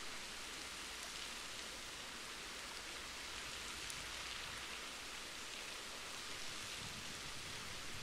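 Waterfall: water pouring and splashing steadily, an even, bright rush with no breaks.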